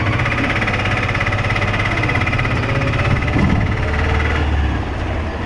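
Auto-rickshaw engine running under way, heard from inside the passenger compartment as a steady, loud, rattling drone; near the end the higher part of the sound fades and the engine note settles lower as it eases off.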